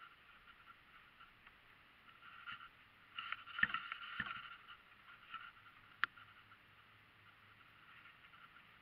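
Faint handling noise from the camera and its mount: a stretch of rustling and scraping about three seconds in, with two dull knocks, then a single sharp click a couple of seconds later, over a low steady hiss.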